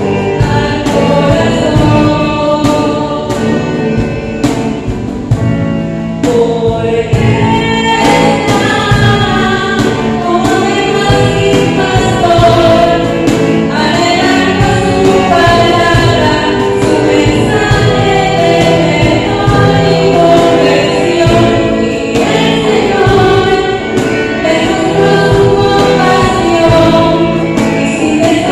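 Church music group performing a hymn: voices singing into microphones over keyboard and electric guitar accompaniment, with sustained chords and a steady strummed beat.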